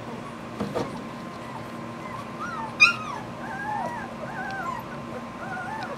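Litter of two-and-a-half-week-old German Shepherd puppies whimpering and squeaking, with short, overlapping cries that rise and fall in pitch. One sharper, louder yelp comes about three seconds in.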